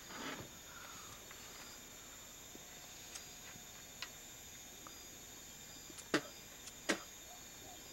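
Crickets and other night insects trilling steadily and high. A few faint ticks sound through it, and two sharp knocks come near the end, about a second apart.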